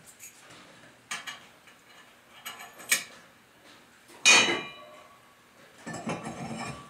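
Metal parts clanking and clinking as cart wheel hardware is handled: a few separate knocks, the loudest about four seconds in with a short ring, then a spell of rattling near the end.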